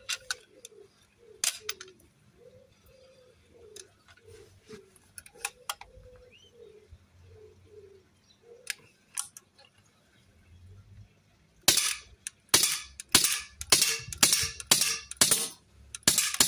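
Huntsman FAL CO2 airgun firing: a few sharp single shots spaced seconds apart, then a fast string of loud shots about two a second near the end, as the CO2 cartridge is emptied.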